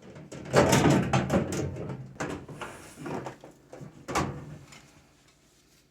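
A microwave oven's outer shell being handled and fitted back over the chassis: a run of clattering knocks and scrapes, loudest near the start, with a last sharp knock about four seconds in.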